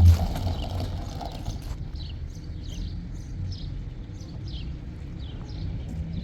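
Birds chirping, a run of short falling chirps a few times a second, over a steady low rumble, with a loud thump right at the start.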